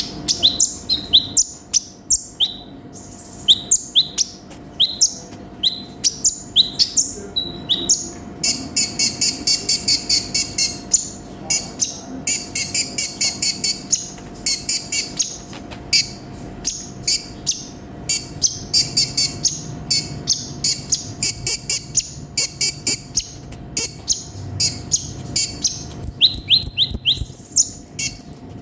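Kolibri ninja sunbird (konin) in full song: a busy stream of sharp, high chirps broken by several fast rattling trills. Thin, very high notes come in near the end.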